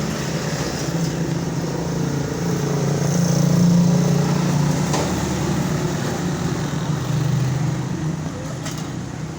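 Road traffic: a motor vehicle's engine hum that swells and peaks a few seconds in, then eases, with a faint click about five seconds in.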